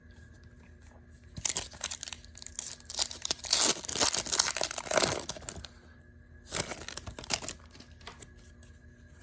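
A trading-card pack's wrapper being torn open and crinkled, in a long rustling stretch and then a shorter one.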